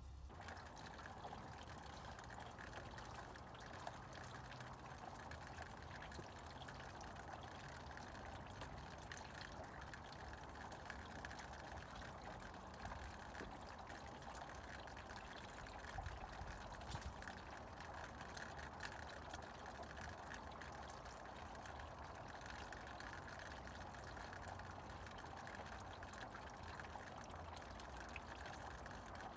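Snowmelt water trickling steadily, faint, with many small ticks of drops and splashes.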